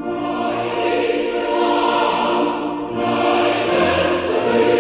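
Choral music: a choir singing held notes, with a new phrase starting about three seconds in.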